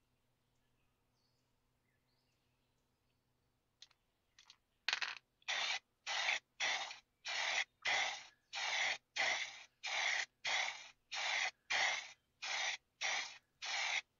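Aerosol spray paint can hissing in short, even bursts, about two a second, as the scabbard is given a coat of paint. It is near silent for about the first four seconds, then two faint short puffs come just before the steady bursts start.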